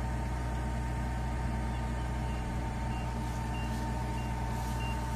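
Kubota Harvest King combine harvester running steadily as it unloads grain through its spout into a trolley: an even engine and machinery drone with a steady whine over it. From about two seconds in, faint short beeps repeat about every three-quarters of a second.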